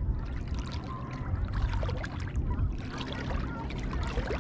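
Shallow seawater lapping and sloshing close to the microphone, with small splashes and trickles over a constant low rumble.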